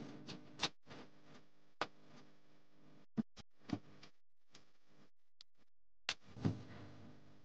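About half a dozen light, sharp clicks and taps at irregular intervals, with a faint steady low hum underneath.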